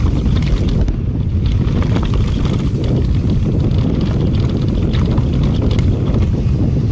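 Wind buffeting the microphone of an action camera on a mountain bike riding fast downhill, a loud steady low rumble, with tyres rolling over dry dirt and leaves and scattered clicks and rattles from the bike.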